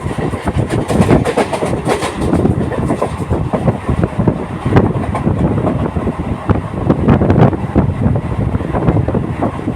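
Local passenger train running at speed: a loud, continuous rumble with dense, irregular clattering and rattling of wheels over the rail joints.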